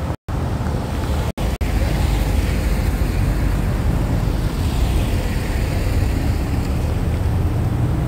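Steady low rumble of wind on the microphone and road traffic. The audio cuts out briefly a few times in the first two seconds.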